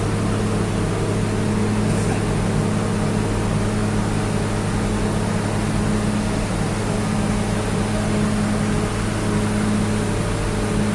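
Diesel engine of a Duomatic track tamping machine running steadily, heard from inside its cab as a continuous low drone.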